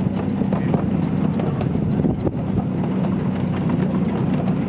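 A 7¼ inch gauge miniature railway train running along the track: a steady low rumble from the wheels and running gear, with irregular clicks and knocks over the rails.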